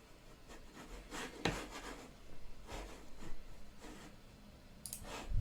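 Faint rubbing and a few light clicks from a computer mouse being slid and clicked on a desk, with a sharper click near the end.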